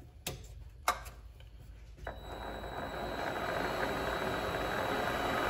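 Two sharp clicks of the Vevor MX400 mini lathe's switch, then about two seconds in the lathe motor starts and spins up the three-jaw chuck. It settles into a steady run with a thin high whine.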